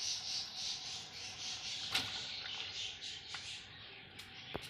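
Tomato sauce bubbling and sizzling in a pan, a fluctuating hiss that fades slightly towards the end. Two sharp clicks come through, about two seconds in and near the end.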